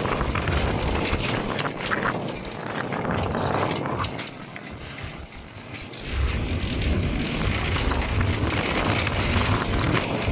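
Vintage electric tram running on street rails, heard from its open front platform: a steady rumble of wheels on track and running gear. It quiets for a couple of seconds around the middle, then grows louder again.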